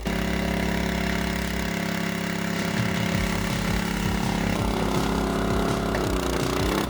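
Small engine of a log-splitting machine running steadily, with irregular low knocks from about a third of the way in. Near the end its pitch dips briefly and recovers.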